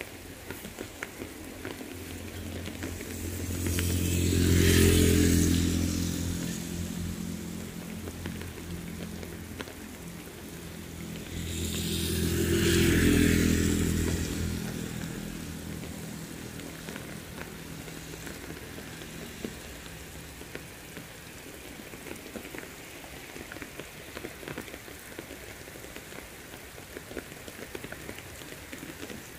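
Steady heavy rain falling on a wet asphalt road and leafy vegetation, with scattered drop ticks. Twice, about five seconds in and again about thirteen seconds in, a motor vehicle passes along the wet road, its engine hum and tyre hiss swelling and then fading. These passes are the loudest sounds.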